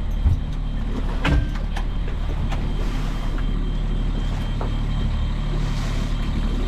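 Sailboat's inboard engine running steadily with a low hum while the boat is motor sailing, with a couple of sharp knocks early on and a faint high beep that repeats evenly throughout.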